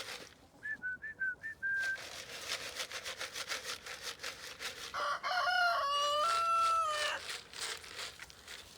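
A rooster crows once about five seconds in, a stepped call lasting about two seconds and the loudest sound here. Earlier there are a few short high chicken calls, and a quick rattling runs under it all, like feed shaken in a bucket.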